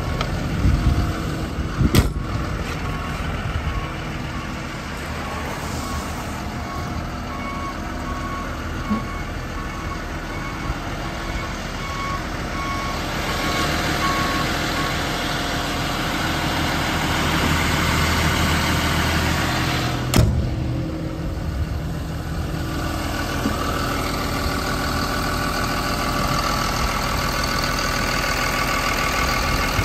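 Doosan DX170W-5 wheeled excavator's diesel engine idling steadily with its engine bay open. A repeated beep sounds about twice a second for several seconds near the middle, and there are two sharp metallic knocks, one about two seconds in and one about two-thirds of the way through.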